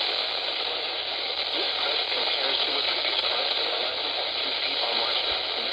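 Weak NOAA Weather Radio signal from KHB32 heard on a weather radio: a steady static hiss with a faint voice reading the river flood warning, barely audible beneath it.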